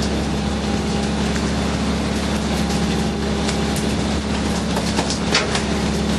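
Fishing boat's engine running steadily with a low hum, with scattered knocks and clatter on deck, the loudest about five seconds in.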